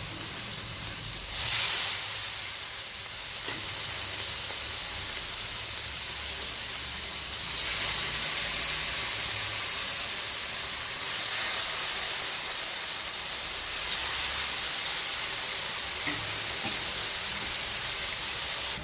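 Marinated chicken pieces sizzling in oil on a dosa tawa, a steady hiss that flares up as pieces are laid down, loudest about a second and a half in.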